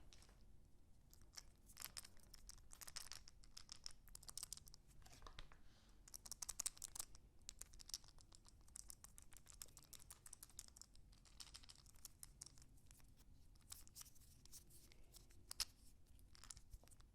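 Ruger 10/22 .22 rifle being handled: faint scratchy rubbing and clusters of small clicks, with a sharper click about six and a half seconds in and another near the end.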